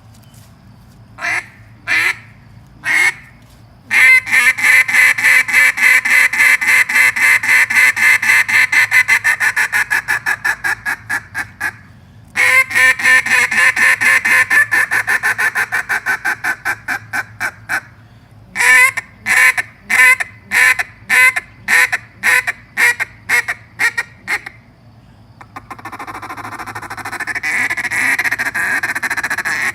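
A 3D-printed duck call from Land'n Gear Calls being blown in a run of mallard-style quacks. It starts with three single quacks, then goes into two long strings of rapid quacks, the first trailing off in loudness. These are followed by a dozen or so spaced quacks and, near the end, a fast continuous chatter that builds in loudness.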